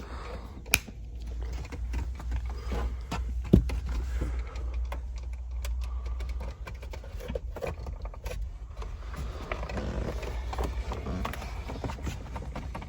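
Workshop handling noise: scattered light clinks and rattles of tools or parts, with two sharper knocks about one and three and a half seconds in. Under it runs a low steady hum that stops about six and a half seconds in.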